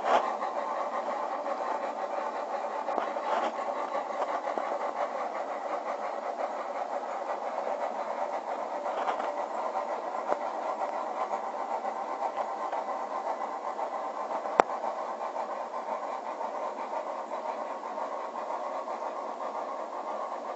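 On30 narrow-gauge model train running along the layout with a steady, even mechanical running sound, broken once by a single sharp click a little past the middle.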